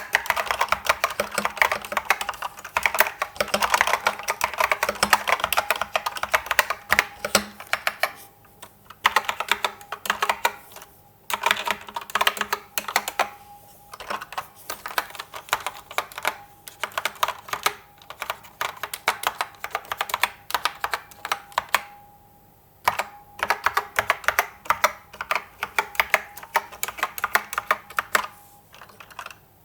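Fast, continuous typing on an IBM 6112884 keyboard with SKCC Green (complicated Alps) switches: rapid clicky keystrokes in runs, broken by short pauses several times.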